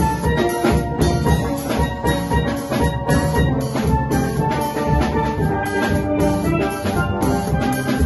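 Steel band playing a Christmas medley: steelpans carry the ringing melody and chords over a drum kit keeping a steady beat with cymbals.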